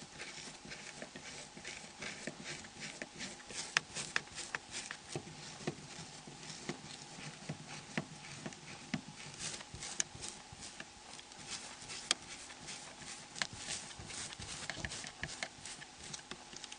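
Small screwdriver undoing the tiny screws of a Nokia N73 phone: a run of faint, irregular clicks and ticks.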